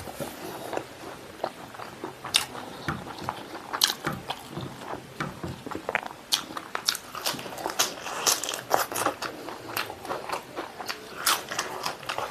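A person chewing pork stomach and intestine with rice, making wet mouth sounds with irregular sharp clicks and crunches.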